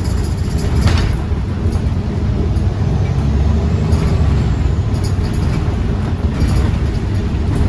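Iveco Urbanway 18 Hybride articulated bus in motion: a steady low rumble, with a brief knock about a second in.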